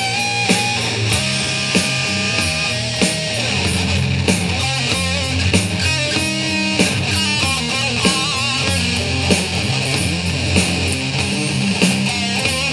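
Jackson electric guitar through a Line 6 Spider Jam amp, playing an improvised rock-metal lead over a backing track of drums and bass: a few held notes, then fast runs of notes.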